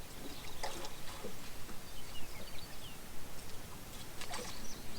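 Faint, short, high chirps of small birds, with a few light clicks and knocks.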